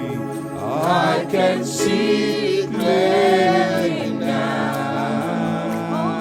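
Worship music: voices singing long, gliding notes over steady held chords.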